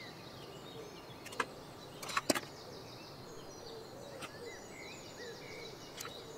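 Hand tools clicking and clattering on a workbench mat while speaker wire is handled and cut: a few sharp clicks, the loudest pair about two seconds in. Faint chirping runs underneath.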